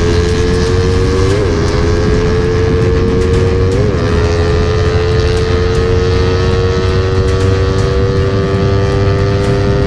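Motorcycle engine with an aftermarket exhaust running hard at speed, its pitch climbing slowly, with two brief flicks in pitch in the first four seconds. Heavy wind rumble on the bike-mounted microphone.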